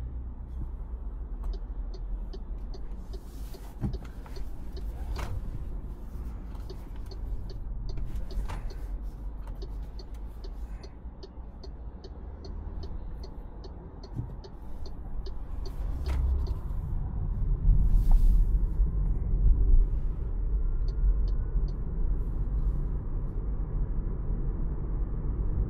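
2024 MG3 Full Hybrid+ on the move: steady low road and drivetrain rumble that swells louder about two-thirds of the way through. Several runs of quick, evenly spaced ticking sound over it, along with a few brief rushing noises.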